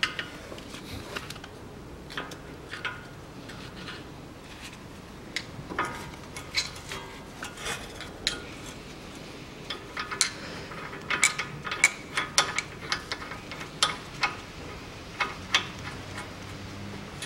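Irregular metallic clinks and clicks from a steel tie rod end puller being fitted over the tie rod end and its screw turned down with a hand ratchet. The clicks come thicker in the second half.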